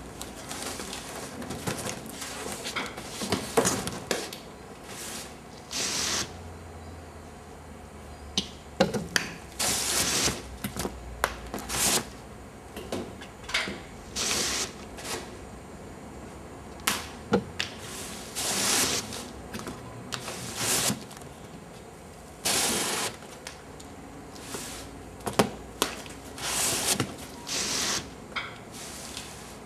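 Cardboard rubbing and scraping with sharp clicks and knocks, coming in irregular short bursts every second or two, as the flaps and workings of a cardboard cottage's windows are handled from inside.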